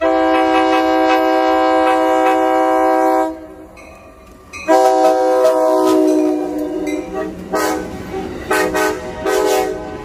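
Passenger locomotive's Nathan K5LA five-chime air horn sounding two long blasts, the second dropping in pitch as the engine passes, then three short blasts, over the rumble of the passing train.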